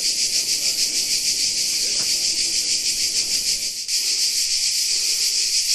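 Loud chorus of cicadas: a steady, dense, high-pitched buzzing with a fast pulse, dipping briefly about four seconds in.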